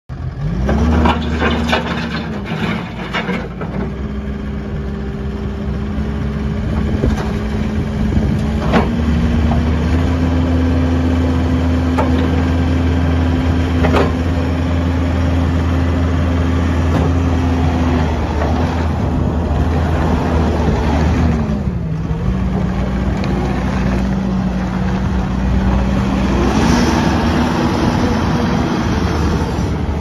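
A Kubota SVL75-2 compact track loader's 74 hp Kubota diesel engine running. Its speed rises in the first second, then holds steady with a few step changes in pitch and a brief dip a little past two-thirds through. A few sharp clanks sound near the start.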